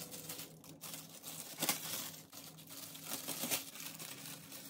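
Plastic oven bag crinkling and rustling in several uneven spells as it is handled and pulled open around a freshly roasted whole chicken.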